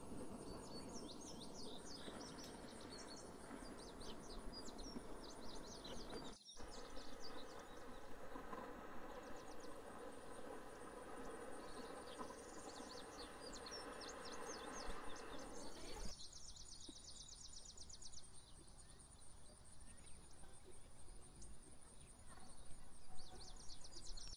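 Outdoor ambience: small birds chirping again and again over a steady high insect drone, with a faint low background rustle. The background changes abruptly twice.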